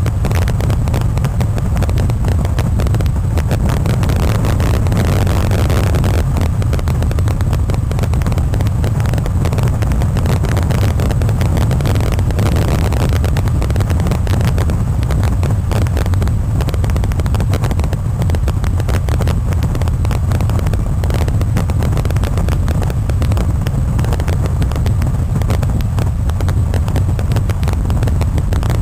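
Steady rush of wind over the microphone of a wing-mounted camera on a tandem hang glider in flight: a loud, even, low rumble with fine flutter through it.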